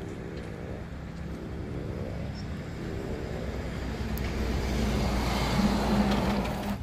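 A city bus running past at street level, its engine and road noise growing steadily louder, with a steady hum coming up over the last couple of seconds before the sound breaks off abruptly.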